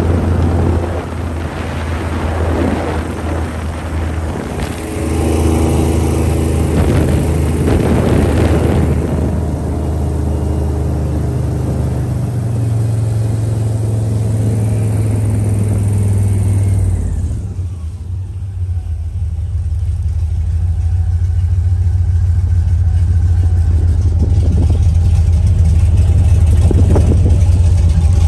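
A boat's outboard motor running under way, with wind and water noise over a steady low hum. About two-thirds of the way through the engine eases off and then builds speed again, growing steadily louder.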